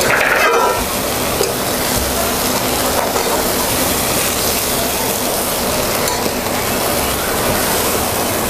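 Fiddlehead fern greens sizzling in hot oil in a metal kadai, with a spatula stirring them and scraping the pan. The sizzle is a steady hiss throughout.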